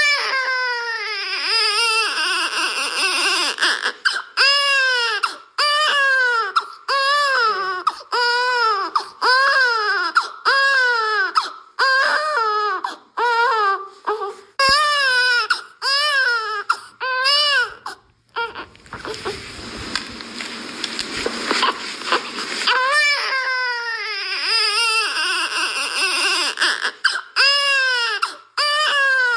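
Baby crying: a long string of wailing cries, each rising then falling in pitch, about one a second. Past the middle the crying breaks off for a few seconds, leaving only a hiss, then resumes.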